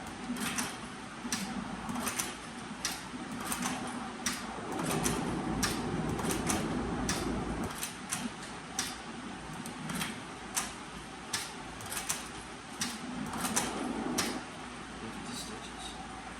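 Sewing machine stitching slowly, a sharp click with each stitch about every two-thirds of a second, its motor humming in spurts, the longest run from about four and a half to eight seconds in.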